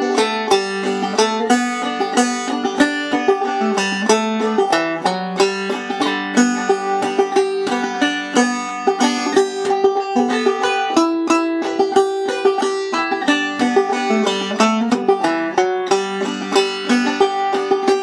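Five-string open-back banjo played clawhammer style in standard G tuning (gDGBD), a steady, even run of quick plucked notes of an old-time tune in G.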